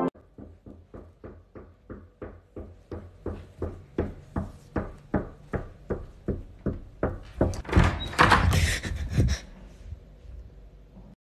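A steady run of knocks, about three a second, growing louder and louder. Near the end they give way to a brief burst of loud noise, which then fades out.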